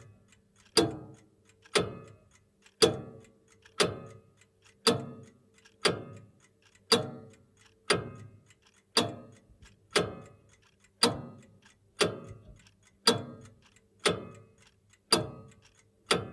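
Vintage grandfather clock ticking steadily, about one tick a second, each tick followed by a brief metallic ring.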